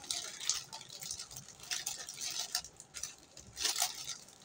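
Irregular rustling and light clicking of hands working with bait ingredients and their packaging, in a run of short crinkly bursts.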